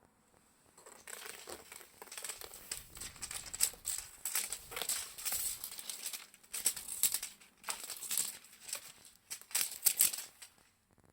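Irregular crinkling and rustling of a cat teaser toy being played with, starting about a second in.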